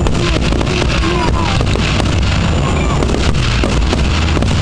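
Fireworks display: aerial shells bursting and crackling in quick succession over a steady low rumble.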